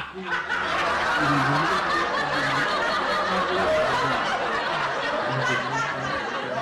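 People laughing, a dense stretch of overlapping laughter that starts just after the beginning and keeps on steadily, with a little talk mixed in.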